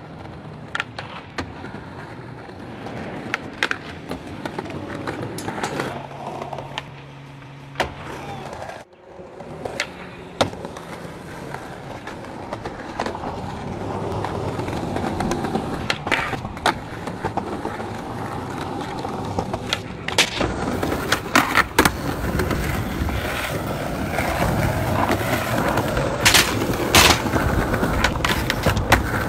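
Skateboard wheels rolling over concrete and stone paving, broken by many sharp clacks from tail pops, landings and the board striking ledges. The rolling sound shifts abruptly twice, about 9 and 20 seconds in.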